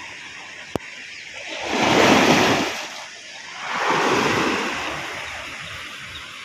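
Sea waves breaking and washing up a steep pebble shore, two surges about two seconds apart, the first the louder. A short sharp click sounds near the start.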